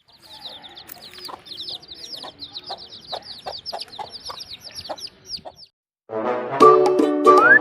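Birds peeping in a rapid run of short, high, falling chirps, with faint clicks among them, for about five and a half seconds. After a short gap, plucked-string music starts about six seconds in.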